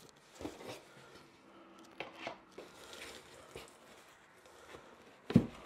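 Packing material and cardboard rustling and crinkling as parts are lifted out of a cardboard box, with a few soft knocks and one sharp knock about five seconds in.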